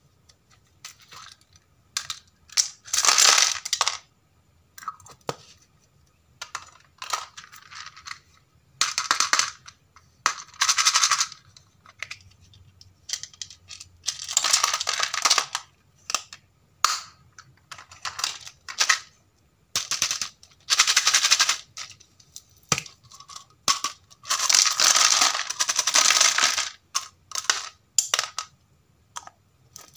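Tiny hard plastic pieces rattling inside a plastic capsule toy and clattering out into a plastic tub of toys, in repeated bursts of clatter with short pauses between.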